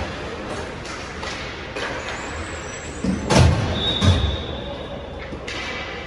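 Indoor ice rink during hockey practice: skates scraping and sticks and pucks clacking on the ice, with two heavy thuds about three and four seconds in as a player shoots on the net.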